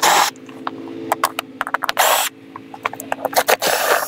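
Ryobi 18V cordless drill/driver backing Phillips-head screws out of a boat seat's swivel pedestal plate. The motor gives a steady whine, with scattered clicks and two short, louder rasps, one at the start and one about two seconds in.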